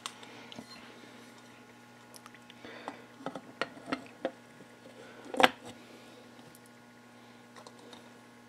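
Clutch cover and gasket being handled and set onto a Kawasaki KX125 engine case: scattered light clicks and taps, with one sharp knock about five seconds in, over a faint steady hum.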